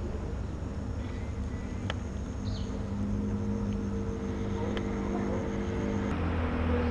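A motor running steadily with a low hum and a few held pitches, which shift and grow slightly louder about six seconds in. A short chirp is heard in the middle.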